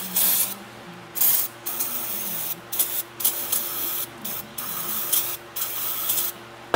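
Aerosol brake cleaner hissing from the can in a series of short bursts, about eight in all, as it is sprayed into an aluminum transmission accumulator housing to flush out dirt and grime.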